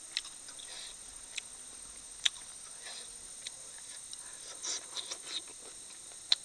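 Quiet close-up eating sounds from a man eating fried chicken wings: several sharp isolated mouth clicks and smacks, with soft chewing and sucking noises a little after the middle as he bites into a wing.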